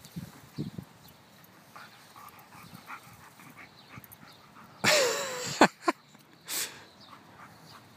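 Black Labrador and a young puppy play-wrestling: quiet scuffling, then a short loud whining yelp from one of the dogs about five seconds in, followed by a couple of sharp clicks and another brief noisy burst.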